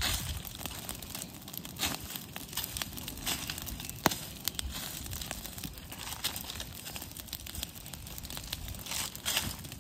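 Dry forest leaf litter crunching and rustling in irregular bursts, with one sharp snap about four seconds in.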